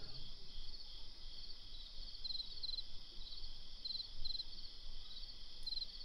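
Crickets chirping in short chirps, in twos and threes, over a faint low rumble.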